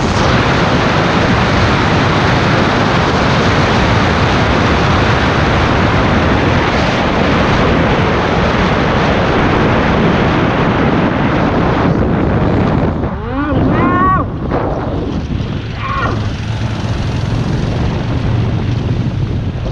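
Heavy wind noise rushing over the microphone of a motorcycle riding at speed. About 13 seconds in, a brief wavering pitched sound cuts through, and the wind then eases somewhat.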